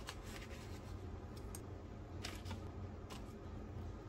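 Chopsticks tapping and paper crinkling as fried pieces are set onto a paper-lined plate: a few sharp light clicks, spread out, over a low steady hum.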